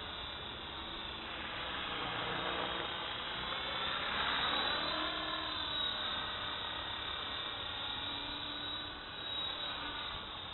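Electric radio-controlled helicopter flying close overhead: a steady whine of its motor and spinning rotor blades. It grows louder and its pitch bends up and back down around four to five seconds in as it passes nearest.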